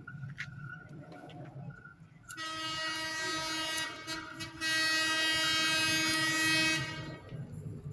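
Horn of the approaching KA Bandara YIA airport train, sounded twice: a blast of about a second and a half starting about two seconds in, then a longer, louder blast of about two seconds. A low rumble runs underneath.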